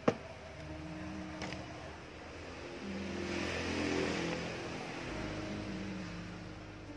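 A sharp metallic click as a screwdriver works on the aluminium body of a Shimano spinning reel, then a fainter click. Soft background music of held notes runs under it, and a rushing noise swells to a peak about four seconds in.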